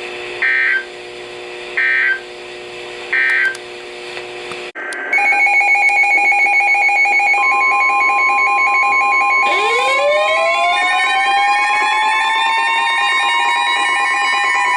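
Three short two-tone data bursts from an Emergency Alert System broadcast, about a second and a half apart: the end-of-message signal after a weather radio alert. Then, after an abrupt cut, a loud electronic alarm of steady and pulsing beeps, joined midway by a siren-like tone that sweeps up in pitch and holds.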